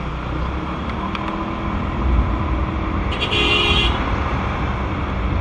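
Honda Vario 125 scooter riding through slow traffic, with a steady engine and wind rumble. A vehicle horn beeps once, briefly, about three seconds in.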